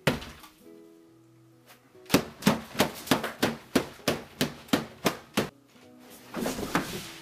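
A fast run of about a dozen sharp smacks, about three a second, as a man's hands and arms chomp down on a plate of salad greens on a table in imitation of alligator jaws, scattering the food. Light background music plays underneath.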